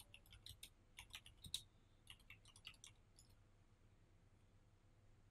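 Typing on a computer keyboard: a quick run of key clicks that stops about three seconds in, with one heavier keystroke about halfway through the run.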